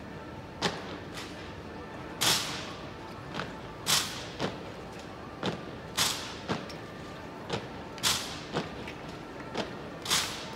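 A military drill platoon's rifles and boots striking in unison: a series of sharp cracks about one a second, every other one louder, each with a brief ring after it.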